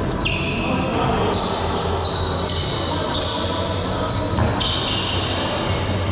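Dodgeball play on an indoor hall floor: overlapping high-pitched rubber shoe squeaks that shift in pitch every half second or so, with a few sharp ball knocks, over a steady low hum of the hall.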